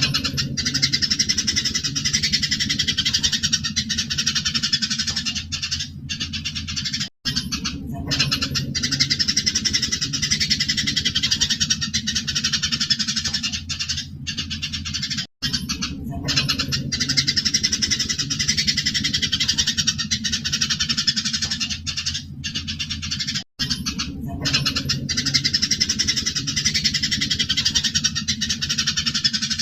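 A flock of Eurasian tree sparrows chirping densely and excitedly, the agitated calls of sparrows fighting, over a low steady hum. The recording breaks off for an instant about every eight seconds and starts again.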